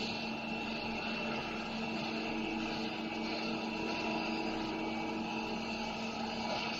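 CNC machine tool running steadily while machining a large steel press brake die: a constant mechanical hum with a high whine, and a second low tone joining about two seconds in.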